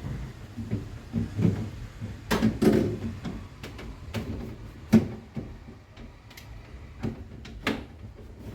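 Plastic refrigerator shelves and bins being fitted back into a fridge: irregular knocks and clicks of plastic bumping against plastic, with the sharpest knock about five seconds in.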